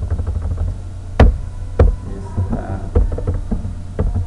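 Computer keyboard keys clicking in irregular runs as a word is deleted and retyped, with two sharper, louder key strikes about a second and just under two seconds in.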